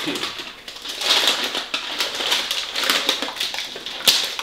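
Shiny gift-wrap paper being torn and crinkled as a present is unwrapped, in irregular rustling spurts with a sharper rip near the end.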